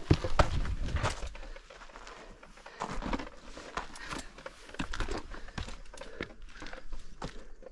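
Footsteps crunching and scuffing on a gravelly dirt trail over rock, in an irregular walking rhythm, loudest in the first second.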